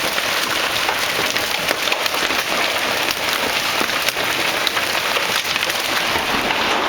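Hailstorm: hailstones pelting down in a dense, steady clatter of countless small sharp impacts over a rain-like hiss.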